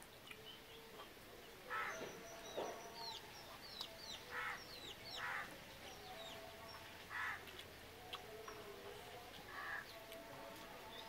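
Birds calling: a run of quick, falling chirps from small birds, with short chicken calls every second or two.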